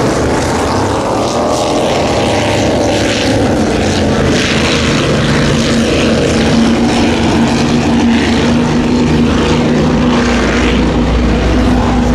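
Racing powerboat engines running at high revs: a loud, steady drone with a rushing noise on top. The drone's pitch falls over the first couple of seconds.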